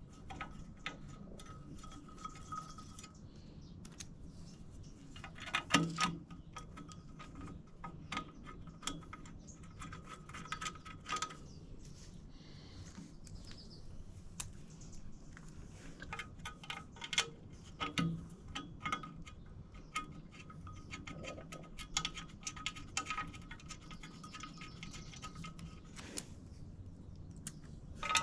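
Small metal clinks and rapid ticking of hand tools and bolts as a clutch pressure plate is bolted onto an engine flywheel, with two louder knocks about six and eighteen seconds in.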